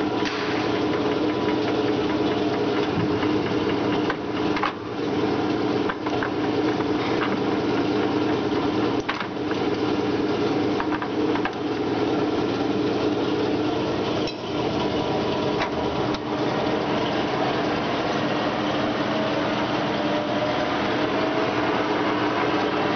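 Semco lathe running under power: a steady mechanical hum with a few sharp clicks. Near the end its pitch climbs as it speeds up.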